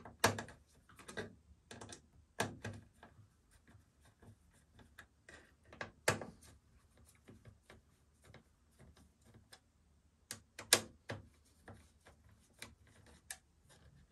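Screwdriver working a screw out of a metal PC case: irregular light clicks and taps of the tool and screw against the metal, with a few louder knocks about six seconds in and again around ten to eleven seconds in.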